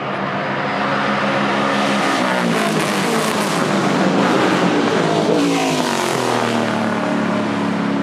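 Vintage race car engines: a steady engine note runs throughout, while a car goes by whose pitch falls twice, loudest about four seconds in.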